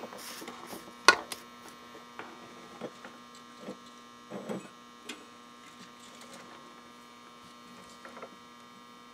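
Steady electrical hum under scattered small clicks and taps as wires are handled and pulled off a pulse motor on a workbench. A sharp click about a second in is the loudest sound.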